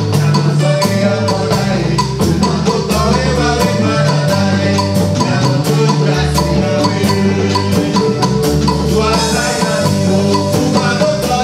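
Instrumental dance music with a steady beat, a moving bass line and bright melodic notes.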